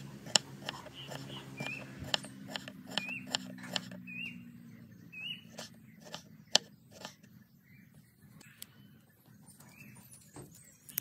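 Scattered light clicks and taps, with a small animal's short chirp repeating about once a second in the background, the chirps growing fainter in the second half.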